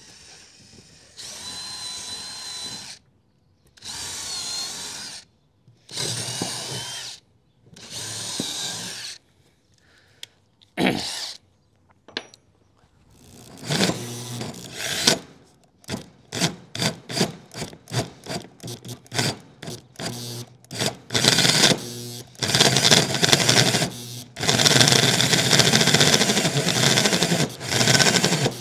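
Power drill driving a hole saw into the wooden deck boards of a utility trailer. It starts with about four separate runs of a second or so, then goes to rapid short trigger pulses, and near the end to longer steady runs as the saw cuts in.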